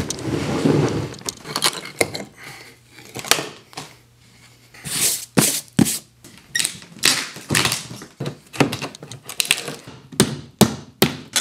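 Wooden shipping crate being taken apart with a claw hammer: a long run of sharp knocks with short scraping noises as the nailed wood slats are pried loose.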